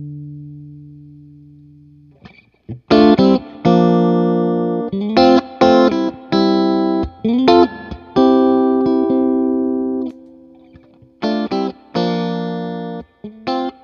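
Electric guitar played through an Effectrode PC-2A photo-optical tube compressor pedal. A held chord dies away over the first two seconds, then a run of sharply struck chords follows, some choked short and some left ringing.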